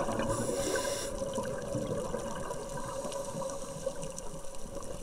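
Underwater sound through a diver's camera housing: a short hiss from the scuba regulator near the start, then a steady low wash of water between breaths.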